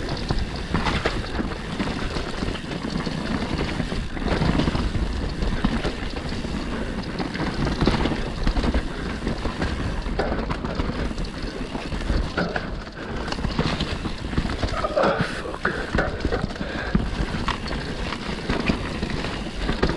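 Mountain bike riding down a rough forest trail: tyres and frame clattering over roots and rocks in irregular knocks, over a constant low rumble.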